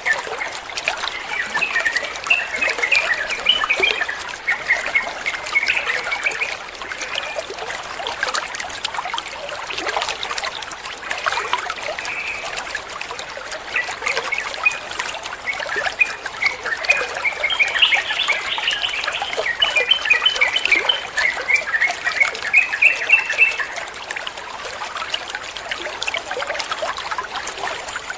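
Yellow-vented bulbuls chattering in quick runs of short bright notes, with pauses, over a steady trickle of running water.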